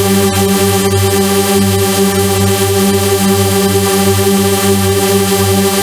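Loud, steady electronic synthesizer drone: a low chord held without a break, pulsing gently.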